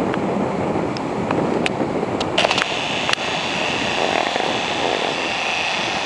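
Steady rushing of a rain-swollen stream running high, with a few sharp clicks about two and a half seconds in.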